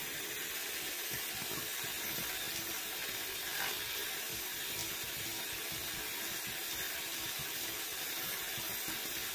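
Bosch electric hand mixer running steadily, its spiral hooks churning butter grains through sloshing buttermilk: the cream has broken and the butter is separating.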